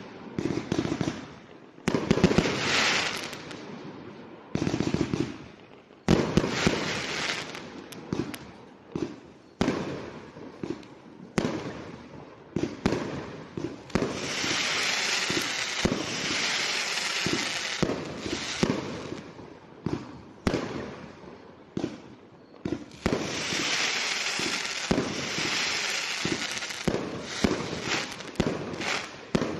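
Consumer fireworks going off: a rapid, irregular series of launch thumps and bangs from aerial shells and bursts. About halfway through a ground fountain sprays with a steady loud hiss, and a second stretch of steady hissing and crackling comes later.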